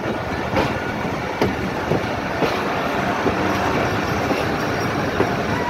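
Passenger train running, heard from on board: a steady rumble and rattle with a few sharp, irregular clacks of the wheels over rail joints.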